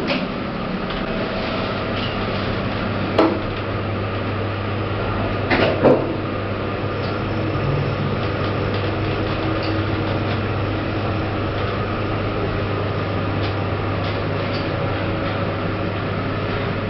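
Lift running: a steady low hum, with two short knocks about three and six seconds in.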